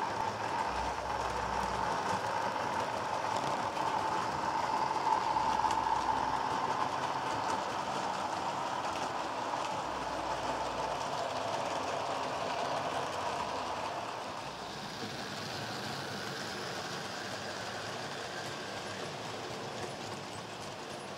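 Model train running along the track: a steady motor whine over the rattle of wheels on rails, loudest about five seconds in, then settling lower and quieter after about fourteen seconds.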